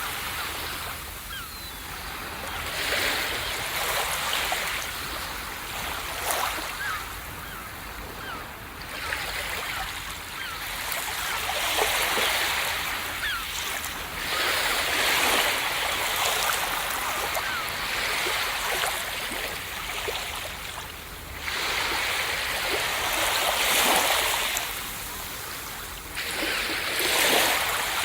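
Ocean waves breaking on a beach: a continuous wash of surf that swells and ebbs every few seconds as each wave crashes and draws back.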